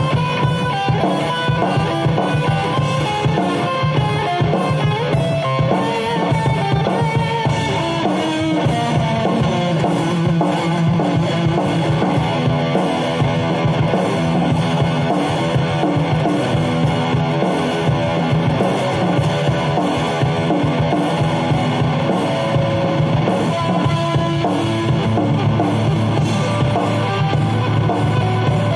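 Kramer Assault 220 FR electric guitar playing a continuous run of lead lines over a rock backing track with a drum kit.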